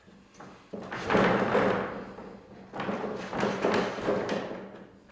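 A wooden easel's centre slide rail being pushed by hand along its track: a knock, then two stretches of wood sliding and rubbing, each about a second and a half long.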